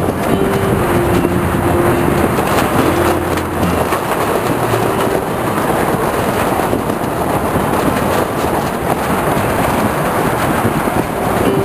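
Wind buffeting the microphone over the rush of choppy water, a steady loud rushing noise from a boat on the open bay.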